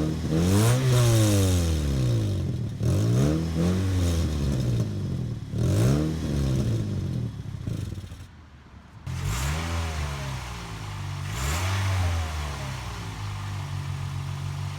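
Toyota Yaris engine blipped repeatedly, about six quick revs that rise and fall back, running through a newly replaced muffler. There is a brief drop in level a little past halfway, and it settles to a steady idle near the end.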